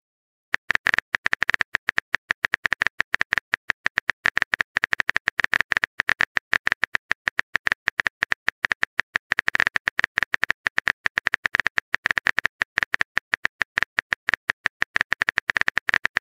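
Phone keyboard typing sound effect: a rapid, even run of key clicks, several a second, as a long text message is typed out. It starts about half a second in.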